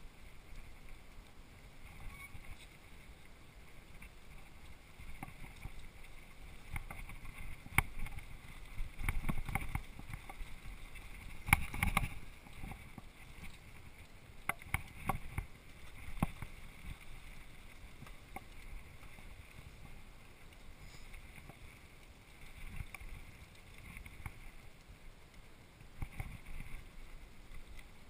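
Mountain bike riding down a dirt singletrack: the steady rumble of the tyres on the dirt, with frequent knocks and rattles from the bike going over bumps, loudest about twelve seconds in.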